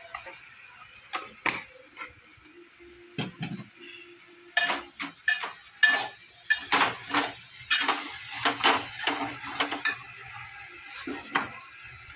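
Metal kitchenware clinking and clattering: a steel ladle, spice containers and steel bowls knocking against a cooking pot on a gas stove, in a busy run of sharp clinks through the middle.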